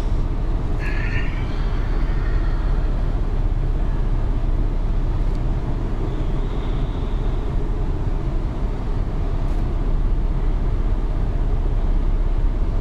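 Steady low rumble of background noise on the open deck of a moving river cruise ship: a breeze buffeting the microphone along with the ship's running noise.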